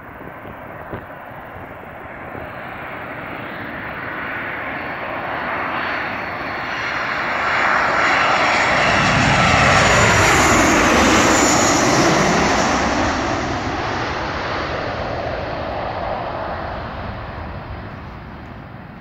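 Boeing 737-800 jet airliner on final approach, its two CFM56-7B turbofan engines growing steadily louder as it comes in low overhead and peaking about ten seconds in. The pitch then sweeps downward as it passes, and the roar fades away.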